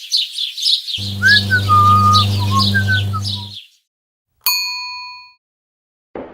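A run of separate sound effects. First comes birdsong, many quick high chirps, joined about a second in by a low steady hum with a few whistled gliding notes over it; both stop at about three and a half seconds. After a short silence, a single bell ding rings out for about a second.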